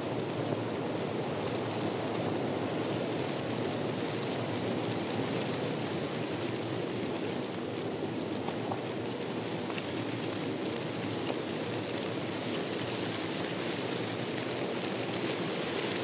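Steady wind: an even rushing hiss with faint scattered crackles.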